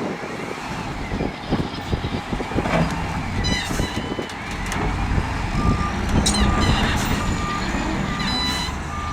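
Heavy earthmoving machines working rocks and soil: diesel engines running with clanking and rattling in the first few seconds, then a reversing alarm beeping steadily over the second half.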